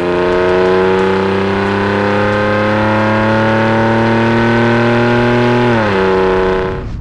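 Ford F-150's 2.7-litre EcoBoost V6 exhaust under steady acceleration, its note rising slowly in pitch. About six seconds in the pitch falls, and the sound stops abruptly just before the end.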